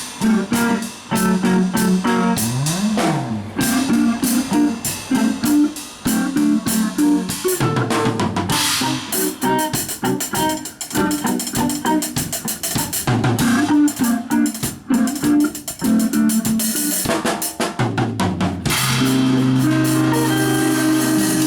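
Music with a drum-kit beat and a stepping bass line. About three-quarters of the way in the drums stop and held low notes carry on.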